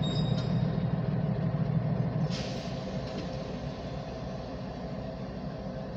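Diesel locomotive engines idling with a steady low rumble, and a short hiss of released brake air about two and a half seconds in. After the hiss the rumble gets quieter.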